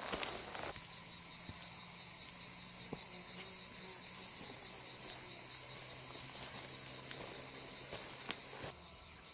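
Steady high-pitched shrilling of insects in dry summer grass and scrub, dropping away abruptly near the end.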